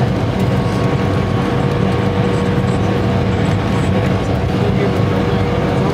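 Airliner cabin noise: a steady engine drone, deepest at the bottom end, with a constant hum running through it.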